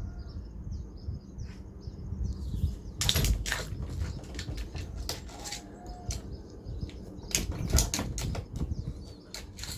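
Birds chirping, then repeated bursts of flapping or rustling from about three seconds in, over a low, steady rumble.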